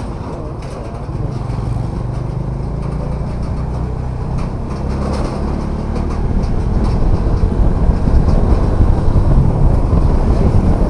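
Bajaj Dominar 400 motorcycle's single-cylinder engine running under way, with wind and road noise on the helmet-mounted microphone; it grows louder over the second half.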